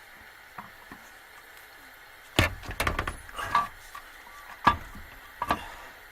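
Sharp knocks and clunks of metal parts and tools being handled while the upper intake manifold is worked onto a Ford 351 V8 in a van: a quick cluster about two seconds in, then single knocks later.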